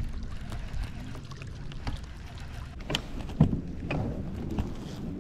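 Wind buffeting the microphone over water lapping around a kayak, with a few sharp knocks about three to four seconds in.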